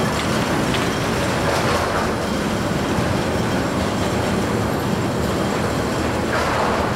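TKS overhead rail-mounted feeding robot running along its rail above the feed trough: a steady mechanical rumble with hiss.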